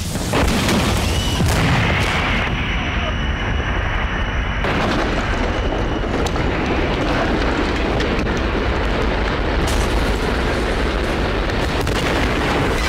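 Car explosion: a sudden blast just after the start, then the sustained noise of the fireball and burning car.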